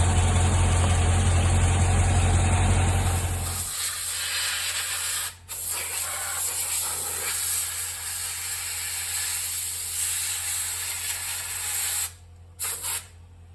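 Compressed air hissing from an air-compressor blow gun as dust is blown out around a Dodge Challenger's squealing brake pads. For the first few seconds a steady low hum runs under the hiss and then stops. The hiss breaks briefly once, cuts off near the end, then comes in two short blasts.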